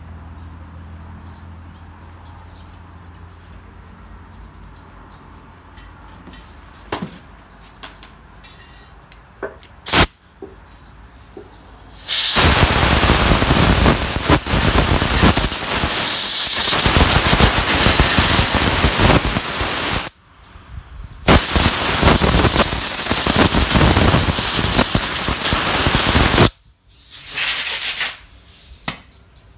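Compressed-air blow gun hissing loudly in three blasts: a long one starting about twelve seconds in, a second after a short pause, and a brief one near the end. It is blowing oil off a motorcycle crankshaft half and connecting rod on a press bed. Before the blasts there are a few sharp clicks over a low background.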